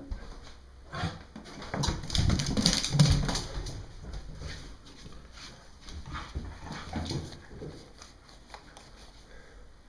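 Irish terrier whimpering and scuffling about in excited play over a stick, with a cluster of knocks and rumbling that is loudest about two to three and a half seconds in, then quieter scattered knocks.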